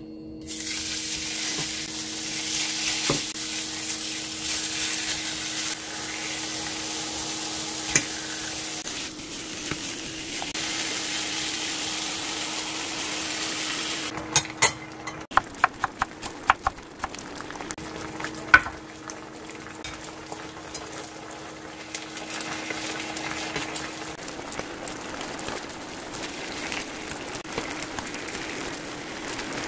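Meat slices sizzling in a hot oiled frying pan, the sizzle starting about half a second in. Midway the sizzle changes as sauce is poured over the meat, followed by a run of sharp metal clicks from tongs and kitchen scissors working the meat in the pan.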